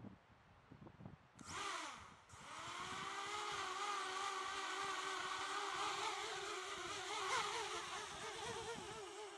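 Brushless motors and propellers of an Eachine Falcon 180 quadcopter spinning up about two seconds in, then whining steadily with a quickly wavering pitch. The wavering is the quad's wobble, which its pilot says needs major tuning.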